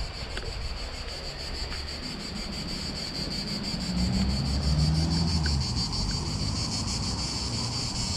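Steady high-pitched insect chorus with a fast, even pulsing, over wind noise on the microphone. A low rumble swells about halfway through and then fades.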